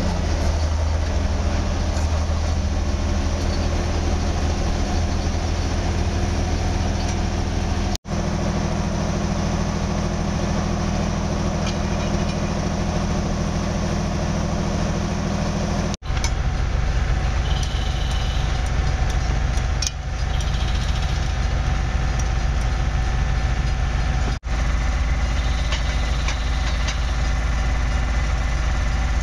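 Diesel engines of rail track-maintenance machines running steadily at a constant hum, the engine note changing abruptly three times, with a few faint clicks.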